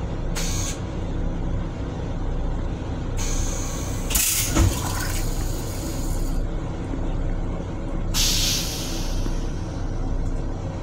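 M7 railcar toilet flushing: hissing bursts of rinse water into the stainless-steel bowl, loudest from about three to six seconds in, with a low thump in the middle and a shorter burst near the end. A steady low rumble runs underneath.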